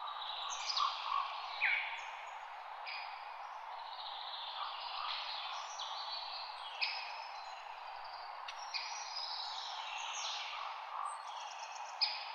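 Several songbirds singing and chirping over one another in a forest, many quick falling and trilled phrases, over a steady soft rush of wind in the leaves.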